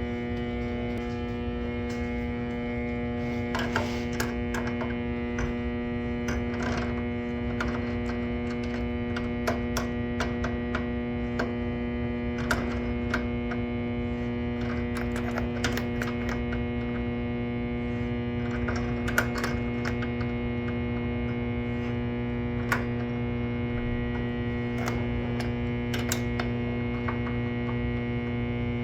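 Steady electrical buzz from an electrical unit in the utility closet, with scattered short clicks and taps from handling.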